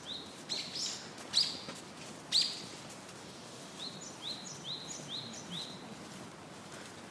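Birds calling: runs of short, rising, high chirps about three a second, in two bursts, one at the very start and one from about four to six seconds in. Three louder, rougher calls come in the first two and a half seconds.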